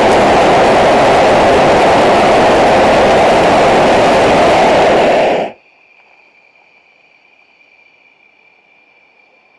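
Hot air balloon's propane burner firing in one long, loud blast that cuts off abruptly about five and a half seconds in, leaving only a faint steady high whine.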